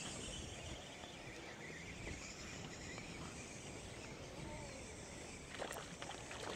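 Faint outdoor ambience of insects and birds by a small pond, steady throughout, with a few faint clicks near the end.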